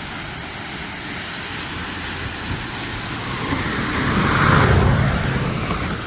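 A car passing fast along the road, growing louder from about halfway through and loudest near the end, over the steady rush of the rain-swollen waterfall.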